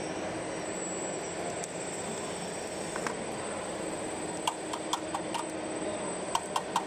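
Radio-controlled scale model Cat 374 excavator running, with a steady hum from its drive and hydraulics, and a run of short sharp clicks in the second half as it moves.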